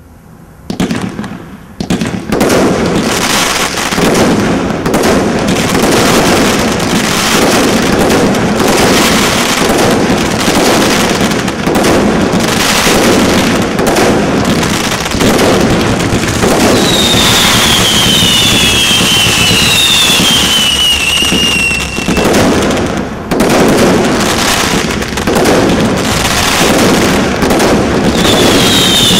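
Maximum Showtime Cat 3 combination roman candle firework cake firing a continuous barrage of launches and bursting pops, starting about a second in. Falling whistles cut through the barrage about two-thirds of the way in and again near the end.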